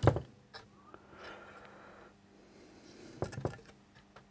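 Quiet handling sounds on a workbench: a short soft knock at the start as the circuit board is set down on a silicone work mat, then a few small clicks about three seconds in from test leads and clips being handled.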